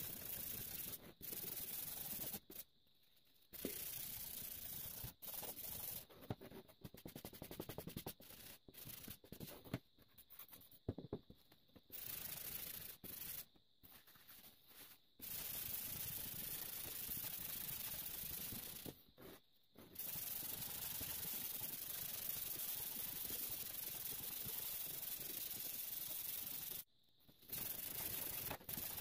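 Sandpaper rubbing back and forth over a rusty steel hand saw blade, taking the rust off: a scratchy rubbing in long stretches, broken by short pauses. Around the middle, a paper towel wiping the blade gives a more uneven rubbing.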